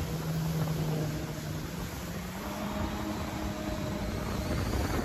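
Jet ski engine running at low speed, a steady hum whose pitch steps up slightly about two seconds in, over a continuous wash of water and wind noise.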